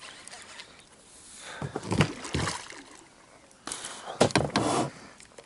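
Water splashing and sloshing in two short bouts, about two seconds in and again about four seconds in.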